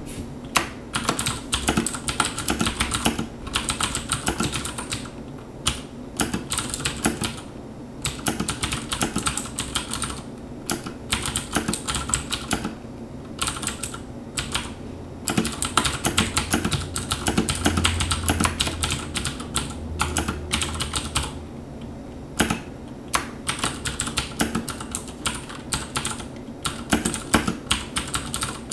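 Typing on a Razer BlackWidow Ultimate mechanical keyboard with Cherry MX Blue switches: fast runs of sharp, clicky keystrokes broken by short pauses.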